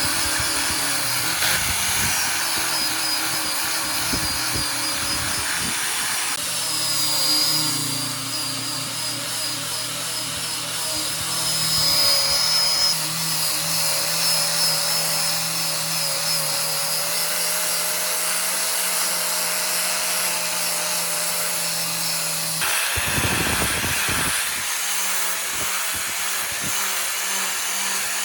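A power tool running steadily on wood. Its pitch and character change abruptly twice.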